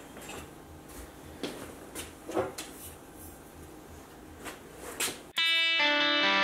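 Scattered light knocks and handling noises from someone moving about a blacksmith's workshop. About five seconds in, electric guitar music starts abruptly.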